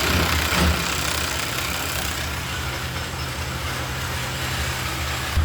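Engine of a lifting machine running steadily at a low, even hum: the noise of this model while it holds a load up high.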